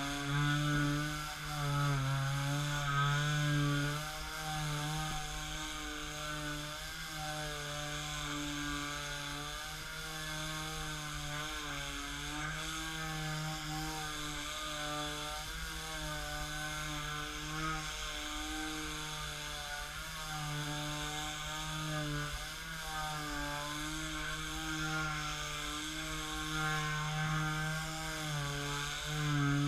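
Black & Decker Mouse detail sander (KA168K) running steadily while it sands a wooden tabletop. Its motor hum wavers slightly in pitch as it is pushed across the wood.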